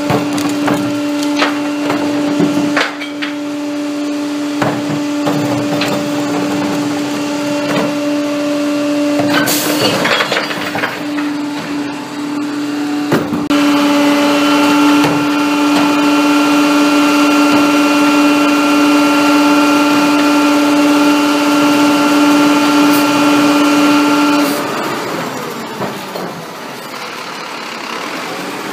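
Pak-Mor rear-loading recycling truck running with a steady, loud hum from its engine and hydraulics while recyclables are tipped into the hopper, with repeated clattering knocks of carts and material in the first part. The hum stops dropping off in level near the end, leaving a quieter engine running.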